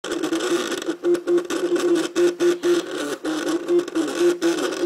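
MakerBot CupCake CNC 3D printer's stepper motors whining during a print. The pitch steps up and down with each short move of the build platform and extruder, with brief pauses between moves.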